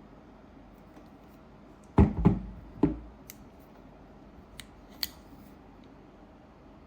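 Hard objects being handled: three sharp knocks close together about two seconds in, then a few lighter clicks.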